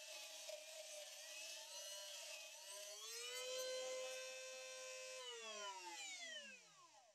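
Dremel rotary tool with an abrasive cutting disc whining at high speed while grinding a flat on a metal rod, a hiss of grinding over the whine for the first three seconds. About three seconds in the whine rises slightly and holds steady, then a little past five seconds the tool is switched off and the whine falls away as the disc spins down.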